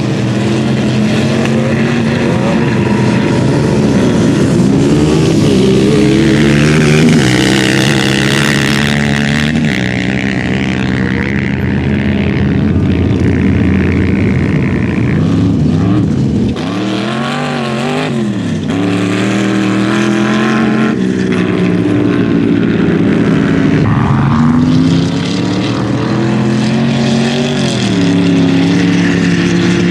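Sand-rail dune buggy and quad engines running and revving as the vehicles drag race across sand. The engine pitch climbs and falls several times as they accelerate and pass, with one sharp rise and drop a little past halfway.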